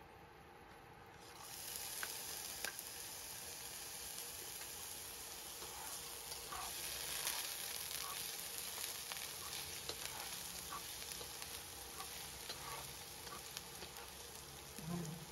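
Minced garlic sizzling in hot oil in a granite-coated wok. The sizzle starts about a second and a half in and runs steadily, while a metal slotted turner stirs the garlic with light clicks and scrapes against the pan.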